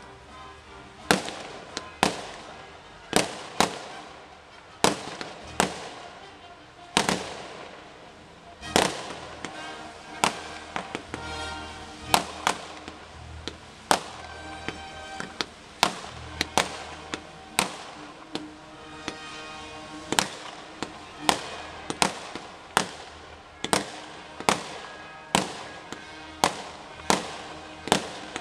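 Fireworks display: a steady series of sharp bangs from shells bursting, about one to two a second, with crackling between them. Music plays underneath, clearest in the middle.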